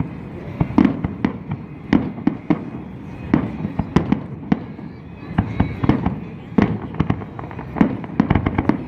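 Fireworks going off in an irregular run of sharp bangs with deep low booms, the reports coming thick and fast in a quick cluster near the end.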